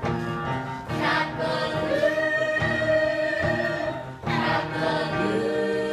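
Cast singing together in a stage-musical chorus number with instrumental accompaniment, voices holding long notes between phrases.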